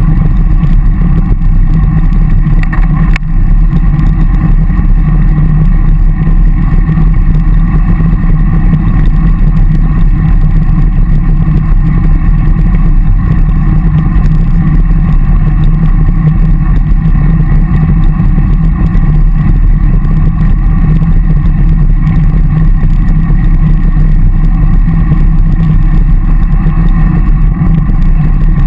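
Steady, loud wind rumble on the microphone of a camera riding on a moving road bike, mixed with road and tyre noise. A single sharp click about three seconds in.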